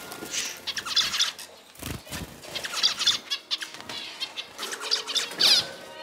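Zebra finches chirping and singing in quick bursts of high, nasal notes, with a brief low flutter about two seconds in.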